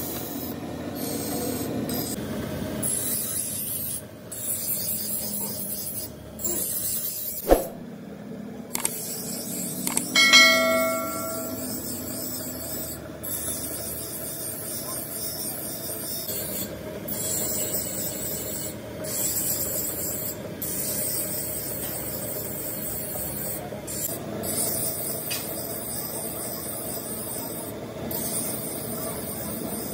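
Steel cobbler's knife blade being ground on a motor-driven grinder's stone wheel: a steady grinding hiss, broken by a few short gaps. A sharp knock comes about seven and a half seconds in, and a ringing metal clink, the loudest sound, about ten seconds in.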